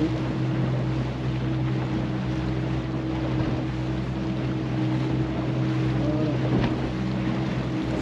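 Boat motor running steadily with a low, even hum, and wind blowing across the microphone.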